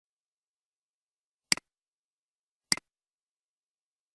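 Two sharp computer-mouse clicks, about a second apart, each a quick double click of button press and release.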